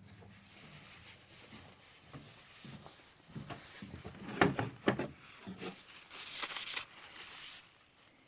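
Handling of chainsaw parts: quiet fumbling, then a few sharp knocks and clatters about halfway through, followed by a short scraping rustle.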